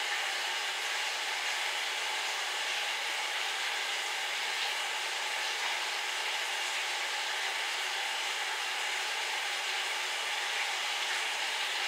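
A steady, even hiss of airy noise, unchanging throughout, with no separate crunches or knocks standing out.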